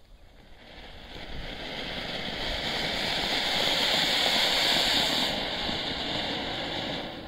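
Large colourful anar (flower-pot fountain firework) hissing as it sprays sparks. The rushing noise swells over the first few seconds, holds loudest in the middle, and dies away quickly near the end as the fountain burns out.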